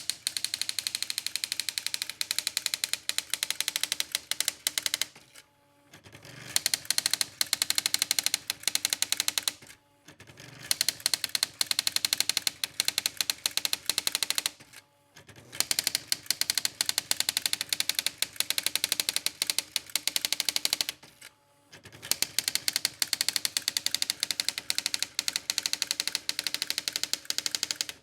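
Brother CE50 electronic typewriter, converted to a daisy wheel printer, printing line after line with rapid, even strikes of the daisy wheel. Each line of strikes lasts about five seconds, with a short pause between lines.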